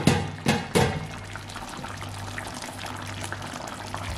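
A few sharp knocks in the first second, then a pot of curry goat simmering on the stove with a steady low bubbling hiss and a steady low hum under it.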